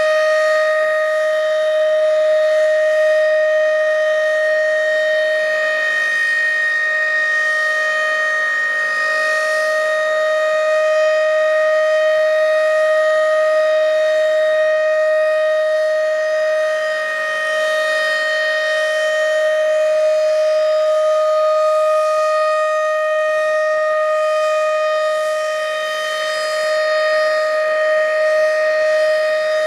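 Federal Signal RSH-10 outdoor warning siren sounding its full-alert signal: one loud, steady held pitch with strong overtones, its loudness dipping slightly now and then.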